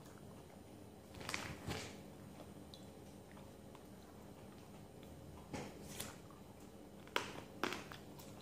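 Eating sounds: vegetables being bitten and chewed, with three pairs of short, sharp crunches, a little after a second in, around six seconds in and around seven seconds in.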